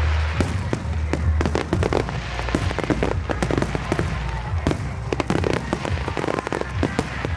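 Fireworks going off in quick succession: a dense run of bangs and crackles over a low rumble.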